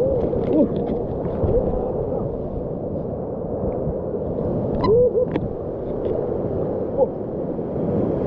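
Muffled sea water rushing and sloshing in rough waves, steady throughout, with a few short hoot-like pitched glides rising and falling over it.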